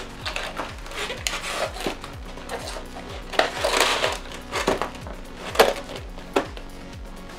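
Background music with a steady kick-drum beat, over the crinkling and clicking of clear plastic packaging as a headset and its cables are handled and lifted out of their tray. A rustle comes about three and a half seconds in and a sharp click about five and a half seconds in.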